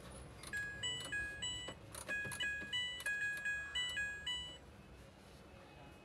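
Washing machine control panel playing its electronic tune: a short melody of clear beeping notes that starts about half a second in and ends after about four seconds.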